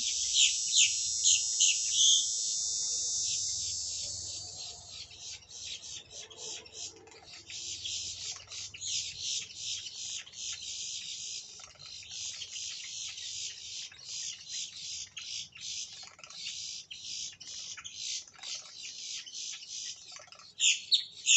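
A flock of boat-tailed grackles calling: loud, high, repeated calls about twice a second at first, then a dense rapid chatter of calls, with two louder calls near the end.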